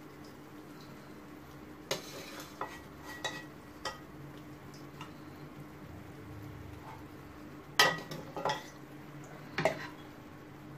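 A metal serving spoon scrapes and clanks against a steel cooking pot and plate as chicken and okra curry is scooped out. The clinks come in scattered strokes, loudest about eight seconds in, over a steady low hum.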